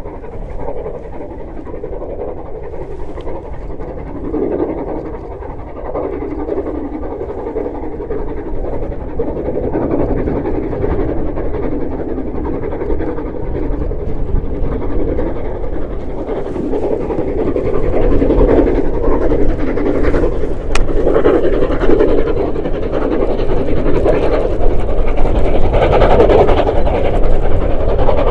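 Steam locomotive working hard as it hauls a train, its exhaust chuffing in a rapid beat, growing steadily louder as it approaches.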